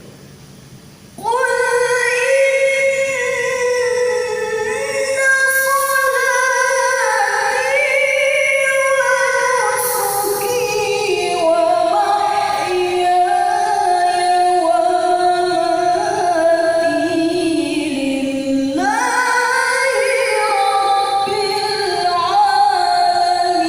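A woman's voice reciting the Quran in a melodic, sung style, with long held and ornamented phrases. The voice comes in about a second in after a short pause.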